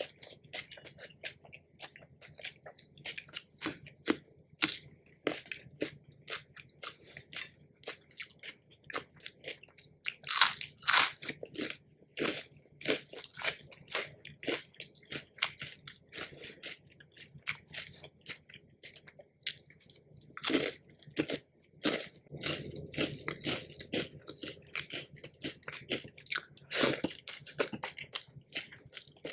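Close-miked ASMR eating: a person biting and chewing crunchy food, with a run of small crackles and mouth clicks and a few much louder crunching bites spread through.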